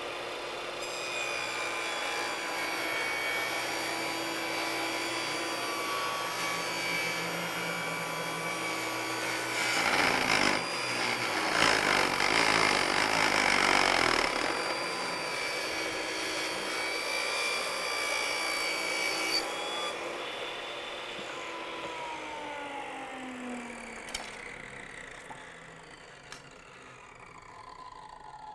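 Portable table saw running and ripping a thin hickory strip lengthwise along a marked line. The cut is loudest about a third of the way in. Near the end the saw is switched off and its whine falls in pitch as the blade spins down.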